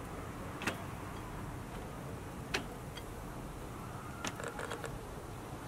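Sharp light clicks and taps at a charcoal kettle grill while tortillas are set on its grate: three single clicks about two seconds apart, then a short rattle of small clicks, over a low steady background.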